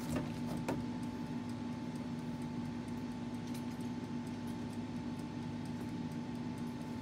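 Steady low hum of a few fixed tones, with two faint clicks in the first second.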